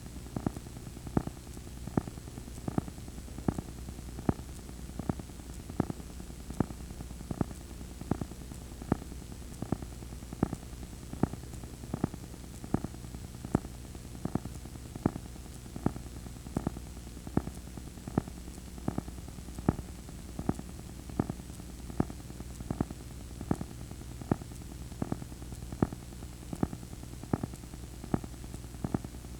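Sound from a VHS player running a blank stretch of tape past the end of the recording: a steady low hum with faint hiss, broken by a sharp regular click about twice a second.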